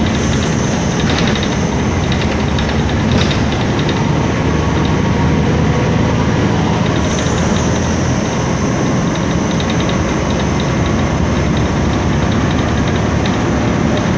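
MAN Lion's City G articulated bus heard from inside while under way: steady engine and road noise from its MAN E2876 CNG engine, with a thin high whistle setting in about half a second in and again around seven seconds.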